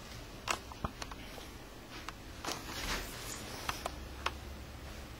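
Handling noise from a handheld camera moving close along a wall: scattered light clicks and soft rustles over a low steady room hum.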